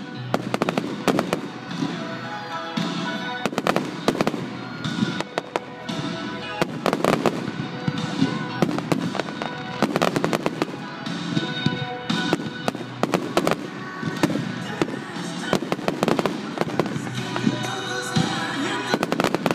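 Aerial fireworks shells bursting in quick succession, a constant run of sharp bangs and crackles several times a second, with music playing underneath.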